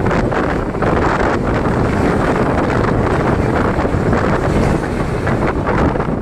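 Wind buffeting the microphone on a moving Mumbai suburban local train, over the steady noise of the train running on the rails, with scattered faint knocks.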